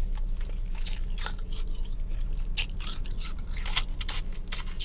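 A person chewing a mouthful of powdery freezer frost, with a run of soft, irregular crunches.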